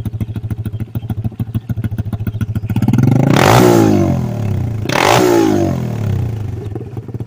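SSR 125cc pit bike's single-cylinder four-stroke engine, running on a NIBBI carburetor, idling steadily and then blipped twice on the throttle. It revs up sharply and drops straight back to idle each time, the second blip shorter, as a throttle-response check of the carb tuning.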